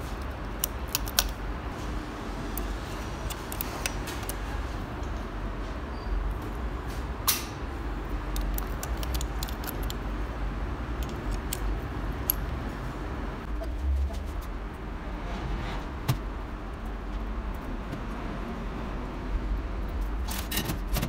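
Scattered light metallic clicks and clinks of small steel parts being handled and fitted onto the governor linkage of an inline diesel injection pump, over a steady low rumble.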